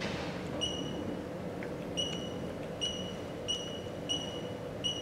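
Six short electronic beeps from an ultrasound machine's control panel as its keys and knobs are worked, here adjusting the spectral Doppler baseline. A steady low hum runs underneath.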